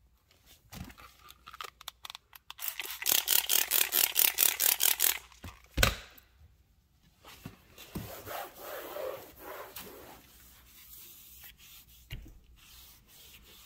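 Microfiber towel wiping a car's interior door trim in quick back-and-forth strokes, about six a second, for a couple of seconds. A single knock comes about six seconds in, followed by slower, softer rubbing.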